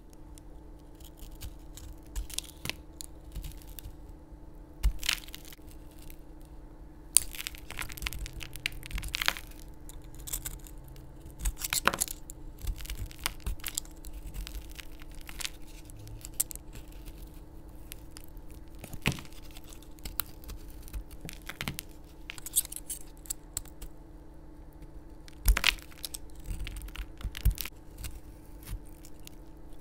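Utility knife blade cutting and prying into a hard, coated bar of soap, with irregular crisp cracks and crunches as chunks break away and crumble. A faint steady hum sits underneath.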